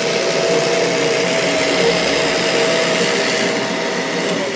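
Vacuum cleaner running steadily with a high whine, then switched off near the end, its motor winding down with the whine falling in pitch.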